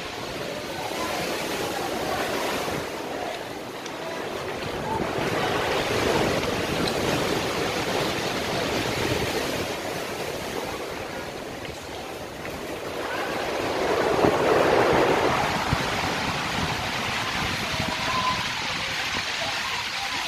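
Sea surf washing into a rocky sea cave, a steady rush of water that swells and eases, loudest about six and again about fourteen seconds in.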